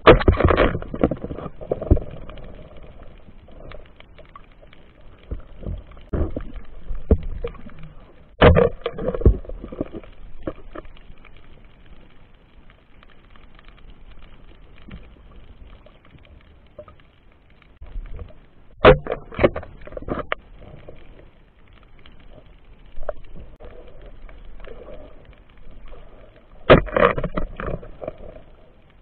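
Muffled underwater knocks and clicks in four bursts about nine seconds apart, with a low wash between them, heard through a waterproof camera housing while spearfishing among rocks.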